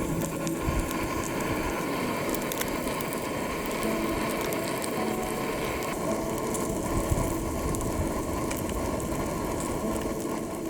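Steady rattling mechanical clicking over a noisy rush, like a ratchet running.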